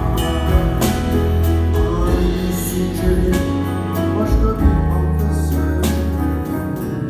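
Live acoustic music: an acoustic guitar strummed over a double bass playing low notes, with a man's voice singing in places.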